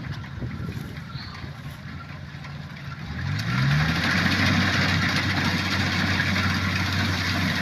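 Kubota rice combine harvester's engine running at low speed, then revving up about three seconds in. It holds at a higher, louder pitch, with a rushing machinery noise on top.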